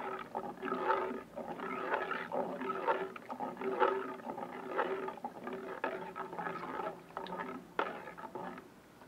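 Thick plantain porridge being stirred in a large pot with a metal spoon, making a wet, gloopy sound with each stroke, about two strokes a second. The stirring stops just before the end.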